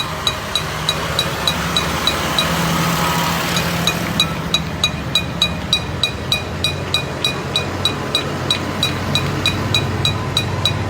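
Tractor engine running steadily, deepening in pitch about halfway through, with a sharp regular ticking about three to four times a second over it.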